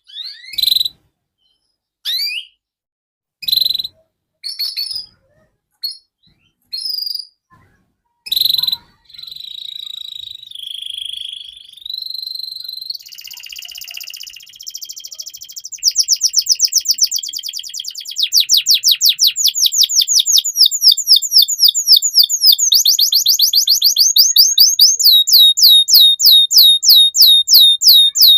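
Domestic canary in full song. It gives a few separate short chirps with pauses, then sings continuously from about nine seconds in. From about halfway through the song becomes loud, rapid trills of repeated sweeping notes.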